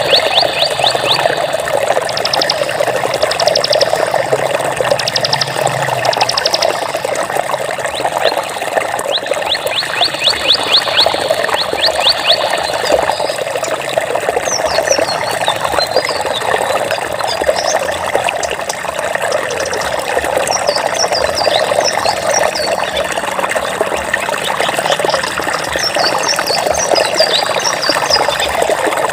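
Water running steadily in a trickling flow. Over it, small birds sing rapid high trills in the first half and short, quickly falling chirps in the second half.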